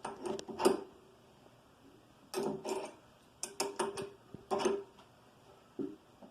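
Wrench clinking against a nut on a drill press as the nut is tightened down: short metallic clicks in irregular groups, some in quick pairs with a brief ring.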